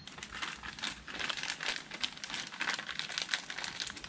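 Small plastic bag of nuts and bolts crinkling as it is handled in the hands, a continuous run of quick crackles.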